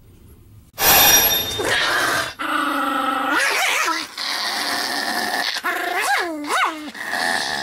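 A Pomeranian barking and growling excitedly in long, nearly unbroken runs, starting about a second in. There are a few sharp yelps that rise and fall in pitch near the middle and toward the end.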